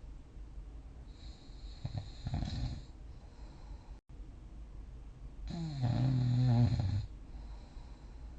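A sleeping person snoring: two snores about three and a half seconds apart, a shorter rattly one about two seconds in and a louder, low droning one lasting over a second near the end, each with breathy hiss alongside.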